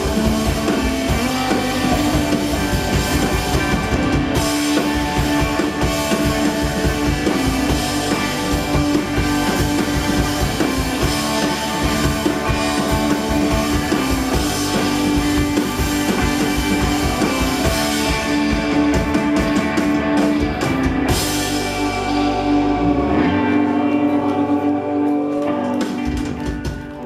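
Live rock band playing, with drum kit and guitar. In the last few seconds the drumming stops and held notes ring on as the sound begins to fade.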